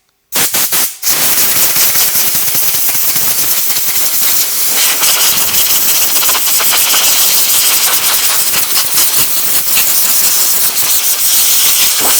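Compressed-air blow gun hissing loudly: a short blast, a brief stop about a second in, then one long steady blast.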